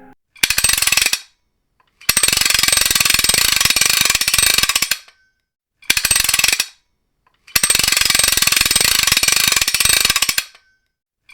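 Rapid ratchet-like mechanical clicking in four bursts, two short and two of about three seconds, separated by silence.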